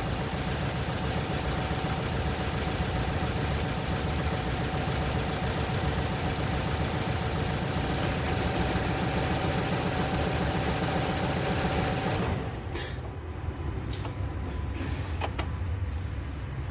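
A Mazda CX-5's four-cylinder engine idling rough with a misfire on cylinder 3, caused by its coil harness being chewed through by a rat. About twelve seconds in the engine sound cuts off, leaving a lower, quieter hum and a few clicks.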